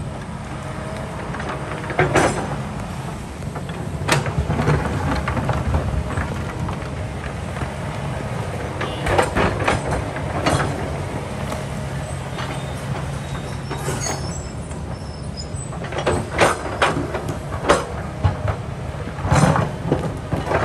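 Kobelco excavator's diesel engine running steadily under load, with repeated sharp knocks and scrapes as the bucket works against rock.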